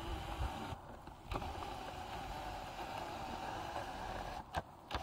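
Cat 320N excavator drill rig's diesel engine running at a steady idle, a low rumble with a steady mid-pitched hum. Short clicks with brief dropouts about a second in and again near the end.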